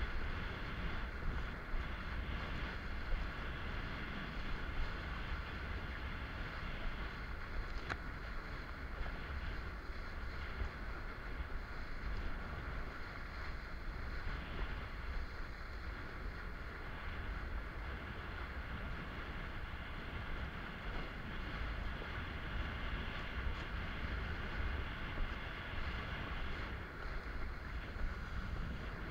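Wind rumbling on an action camera's microphone and water rushing under a kiteboard as it rides across choppy sea.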